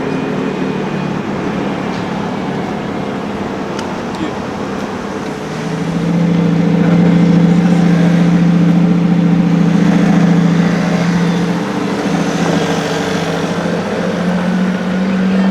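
Car engine running at low, steady revs, growing louder about six seconds in and easing back just before twelve seconds.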